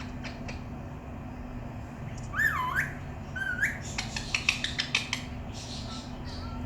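Pet parrot whistling: two short gliding whistles that swoop up and down, about two and three and a half seconds in, followed by a rapid run of sharp clicks.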